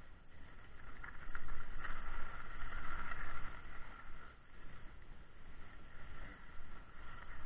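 Wind rushing over an action camera's microphone with the hiss of sliding downhill over snow, louder for a second or two about two seconds in.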